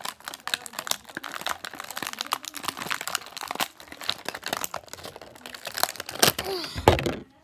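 Clear plastic packaging crinkling and crackling as it is handled and pulled open, a dense run of irregular crackles that is loudest about six seconds in, when the wrapper is held close.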